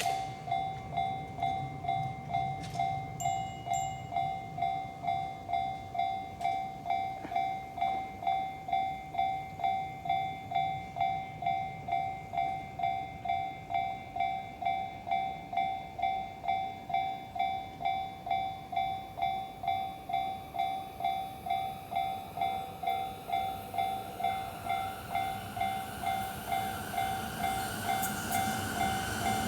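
Japanese railway level crossing warning bell ringing in an even beat, just under two strokes a second. From about three-quarters in, a train's rolling noise grows louder as it approaches.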